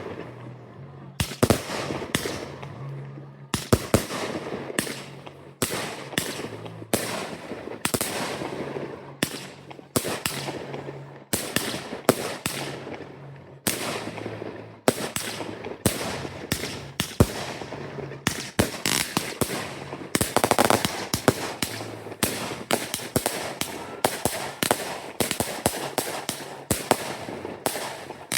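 Fireworks display: a continuous run of aerial shell bursts, sharp bangs several a second at times, with crackling tails, densest about two-thirds of the way through.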